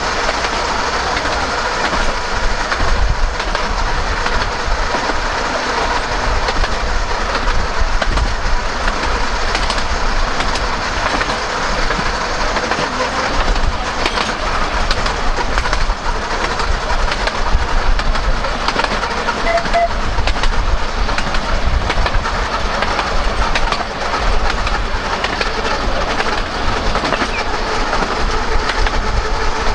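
Narrow-gauge electric tram running along its line, heard from the top deck: a steady rumble and running noise of the wheels on the rails, with scattered clicks over the track.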